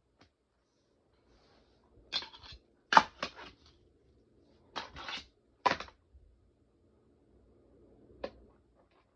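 Fingerboard with bearing wheels clacking on a mini skatepark's ramps and rails as tricks are popped and landed: a string of sharp clacks, the loudest about three seconds in, and a last single clack near the end.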